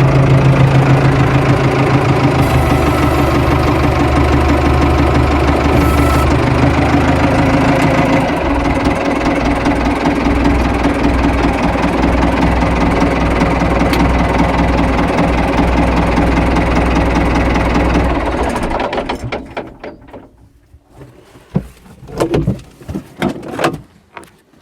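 An engine running steadily, then shutting down about 18 seconds in. A few scattered knocks and clatters follow.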